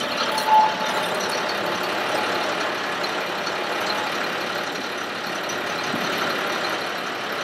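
Diesel engine of a 2008 Ford F-750 bucket truck idling steadily, with the PTO engaged to drive the boom's hydraulics.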